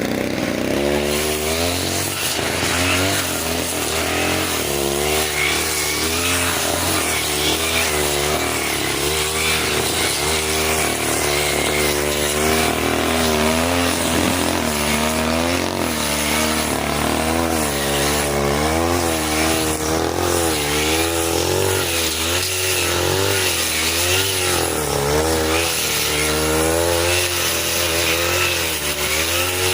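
40cc two-stroke brush cutter running under load as it cuts thick grass, its engine pitch rising and dipping over and over as the blade bites.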